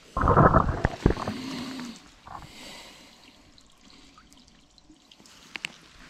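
Water splashing as an FPV freestyle quadcopter crashes into water: one loud splash just after the start, then quieter dripping and trickling water close to the drone's on-board camera.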